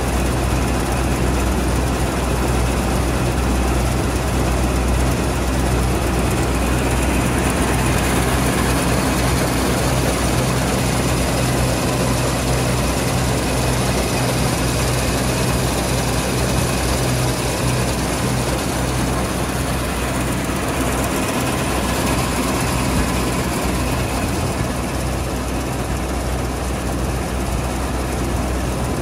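Deutz-Fahr 4080 HTS Topliner combine harvester running stationary, giving a steady, loud, even drone with a deep hum underneath.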